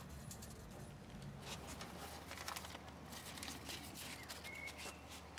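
Faint rustling and small clicks of banknotes and a bank card being handled at a cash machine, with one short electronic beep about four and a half seconds in, over a low steady hum.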